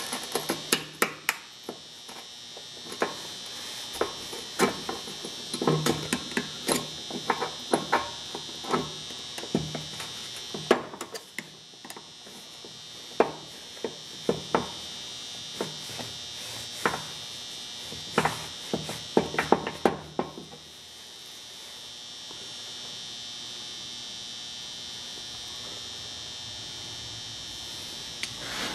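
Thin metal tool clicking and scraping against the rotor and vanes of a Hutchens air sander's air motor as the dirty, gummed-up vanes are pried loose. There are sharp, irregular clicks for about twenty seconds, then they stop, leaving a steady high-pitched hiss.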